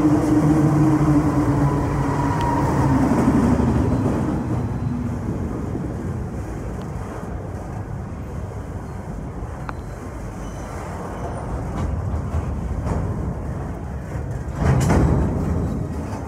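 A diesel freight train passing: the locomotive's engine tone falls slightly in pitch and fades over the first few seconds as it moves away, leaving a steady rumble of rolling wagons. A brief louder burst comes about fifteen seconds in.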